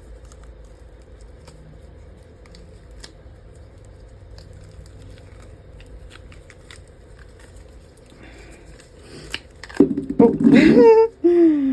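Faint scattered clicks and light handling taps over a steady low hum, then a person's voice comes in loudly near the end.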